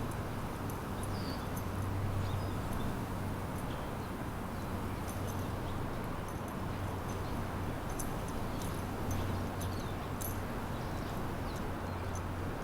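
Small birds chirping in short, scattered high calls over a steady low hum of city background.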